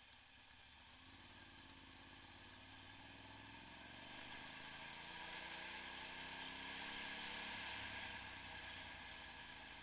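Motorcycle engine pulling away from a stop about a second in, its pitch climbing as it accelerates, with wind and road hiss rising with speed; it is loudest around eight seconds in.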